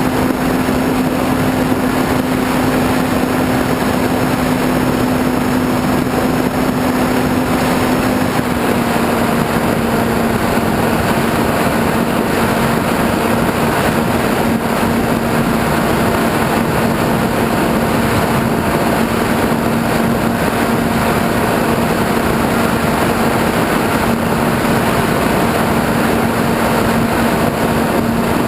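Model airplane's motor and propeller droning at a steady pitch, with wind rushing over the onboard camera. The pitch steps down slightly about eight seconds in.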